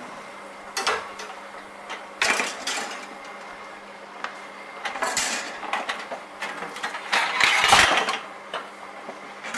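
Metal bakeware clattering in a drawer as muffin tins are lifted out from among baking trays and cooling racks: a few short clanks, then a longer, louder clatter near the end.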